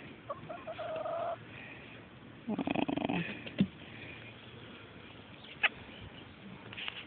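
A hen making soft, low calls while being stroked: a steady call lasting about a second, starting about half a second in, then a rougher, buzzing call around the middle. A couple of sharp clicks follow later.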